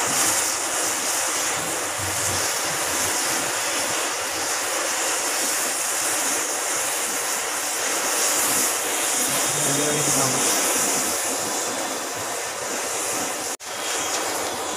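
Hundreds of matchsticks burning together: a steady hiss and rush of flame. The sound breaks off for an instant near the end.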